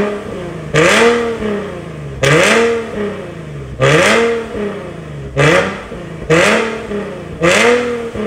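Nissan 370Z's 3.7-litre V6 revved repeatedly in place through a valved exhaust: six quick blips, each rising sharply and falling back to idle.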